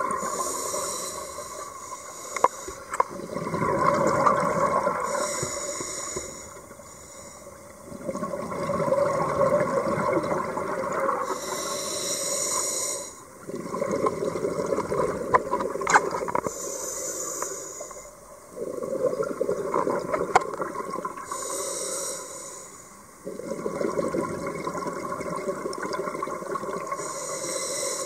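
Scuba diver breathing through a regulator underwater: a short hissing inhale about every five seconds, each followed by a long bubbling rush of exhaled air.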